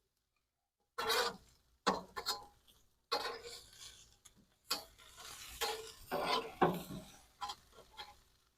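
A metal grill tool scraping and clinking against the cooking grate of a charcoal grill as burger patties are moved and spaced out. The sounds come in irregular scrapes and knocks, starting about a second in.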